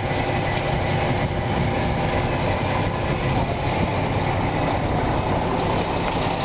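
Diesel engine of a Mack concrete truck running steadily at a constant speed.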